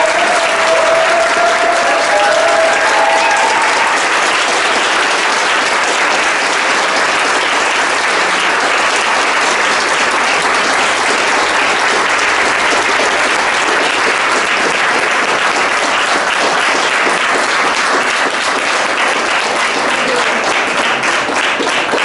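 A room full of guests applauding, sustained dense clapping with a few voices calling out over it in the first few seconds. It thins out near the end.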